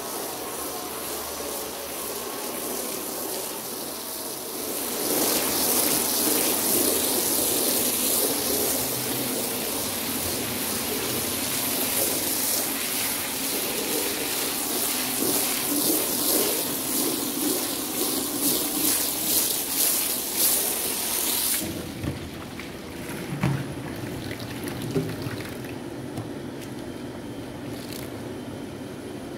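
Water from a hose spraying onto a soaked rug on a tiled floor, a steady hiss that grows louder about five seconds in. About three quarters of the way through it drops to a quieter stream of water pouring from the hose into a plastic watering can, with a couple of knocks.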